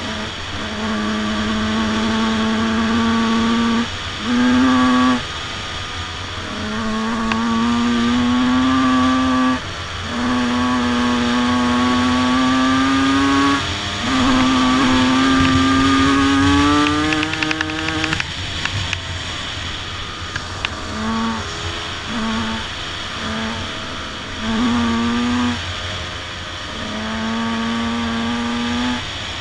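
Two-stroke motocross bike engines, a Honda CR 250 and a Yamaha YZ 125, riding together. The throttle is held for a few seconds at a time with the pitch climbing a little, then briefly shut off. Short, choppy blips come in the second half.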